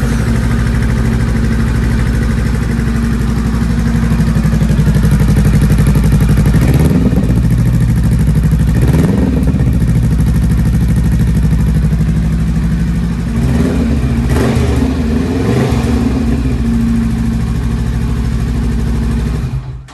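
Honda Rebel CMX500's parallel-twin engine idling loudly through a Musarri GP Street Series slip-on exhaust fitted with its noisiest baffle. It is revved a few times in the middle and cuts off suddenly at the end.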